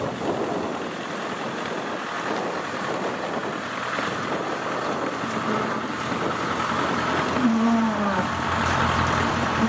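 Engine of a tracked rice carrier running as it crawls along under a full load of rice sacks, with wind on the microphone. A short tone that dips in pitch sounds over it about seven and a half seconds in.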